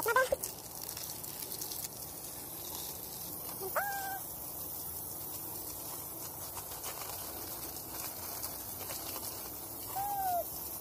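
Garden hose spraying water onto a wall and the plants beneath it, a steady hiss of spray. Three short high calls stand out over it: one at the start, one about four seconds in that rises sharply and then holds, and a falling one near the end.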